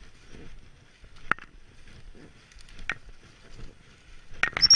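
Footsteps and rustling through damp rough undergrowth, the plants brushing against clothing, with a sharp brush or step every second or two and a quick flurry of them near the end. A brief high chirp sounds at the very end.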